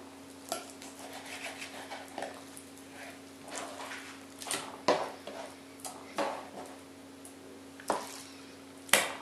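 Kitchen knife slicing raw chicken on a plastic cutting board, with scattered knocks of the blade on the board and of meat pieces going into a metal saucepan. A steady faint hum runs underneath.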